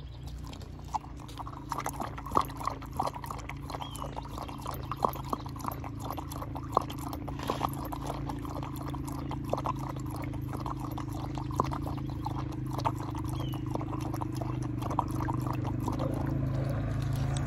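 A dog lapping water from a collapsible travel bowl: a fast, irregular run of wet laps and small splashes that starts about a second in and keeps going.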